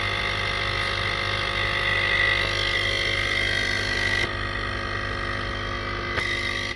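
Nespresso capsule coffee machine's pump running steadily as it brews a shot. The sound changes slightly a little past four seconds in, then cuts off suddenly at the end when the shot is finished.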